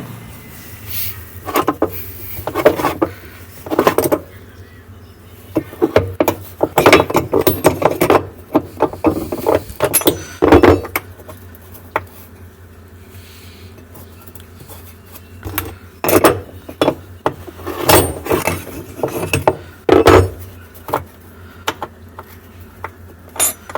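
Metal tool and nut clinking and rattling in irregular bursts as a loosened nut is worked off a washing machine's shaft, over a steady low hum.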